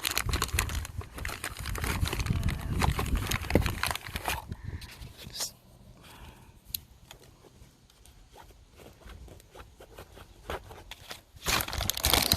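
Packaging crinkling and rustling as a new impact wrench is unpacked from its box. The handling is busy for the first four seconds or so, turns to scattered light clicks and rustles in the middle, and picks up again near the end.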